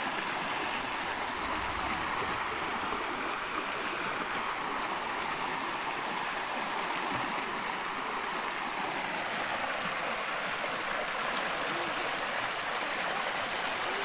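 Stream water rushing and splashing steadily over smooth rock in a shallow white-water chute.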